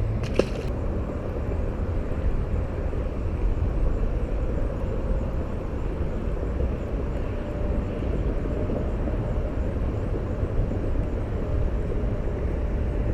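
Steady outdoor background rumble with a faint, even hum through most of it, and a single brief click just after the start; no distinct sound stands out.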